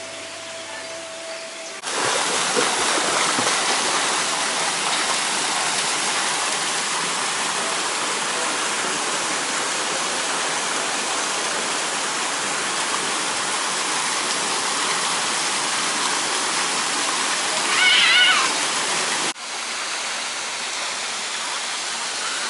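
Water pouring and splashing from a kiddie pool's play fountains: a loud, even rush that starts about two seconds in and cuts off abruptly about three seconds before the end. A brief high wavering cry comes just before the cut, and a softer rush of water follows it.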